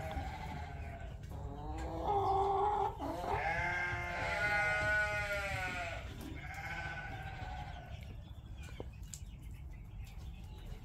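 Sheep bleating: four drawn-out, wavering bleats, the longest lasting about three seconds in the middle, then quiet.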